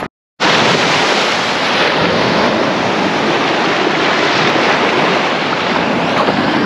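Ocean surf washing against a rocky shore: a loud, steady rush of wave noise with no pitch or rhythm.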